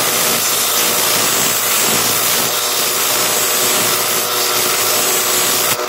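Belt grinder running with a steel bayonet blade pressed against the abrasive belt: a steady, loud grinding hiss over the motor's hum, with the hiss dropping away just before the end as the blade comes off the belt. The belt is worn, which the sharpener says makes the grinding slower.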